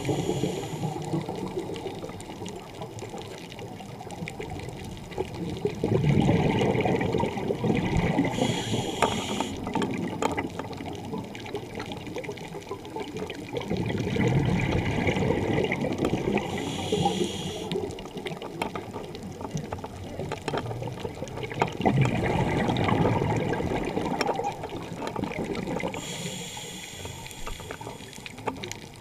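Scuba diver breathing underwater through a regulator: a short hiss on each inhale, then a longer rush of bubbling exhaust on each exhale, repeating about every eight to nine seconds.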